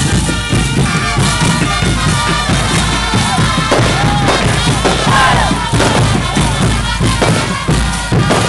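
Live band playing caporales music, with a drum beat thumping under it.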